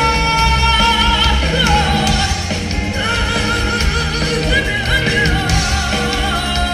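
Music: a singer holds long notes with a wavering pitch over a band accompaniment with heavy bass.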